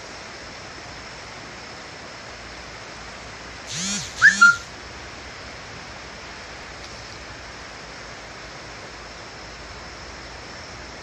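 Steady rushing noise of the flooded Chenab river. About four seconds in, two short loud calls, each rising and falling in pitch, cut through it.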